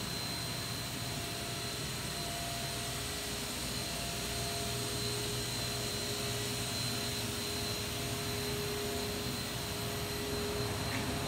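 Steady mechanical hum and whir of running machinery or fans, with a low drone and a faint high-pitched whine.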